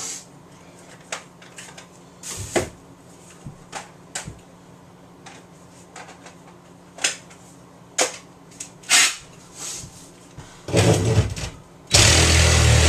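Scattered clicks and knocks of tools and a battery being handled. Near the end a cordless power tool runs in a short burst, then starts again and runs steadily and loudly.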